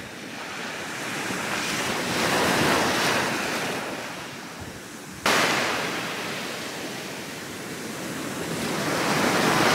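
Sea surf breaking and washing up on a beach, swelling and fading twice, with an abrupt jump in level about five seconds in.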